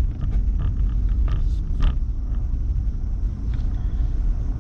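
Car driving, heard inside the cabin: a steady low rumble of engine and road noise with a few faint clicks.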